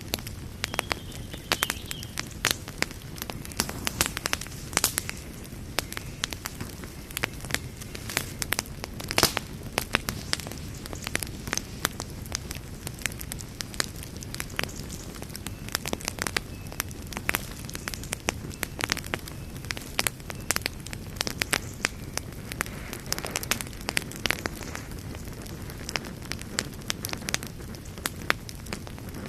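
Wood fire burning, with frequent sharp irregular crackles and pops over a steady low rumble of flame.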